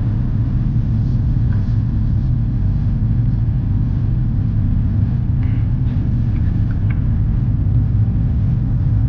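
Steady low rumble inside the cabin of an Airbus A350-900 in flight: Rolls-Royce Trent XWB engine noise and airflow, with a few faint clicks.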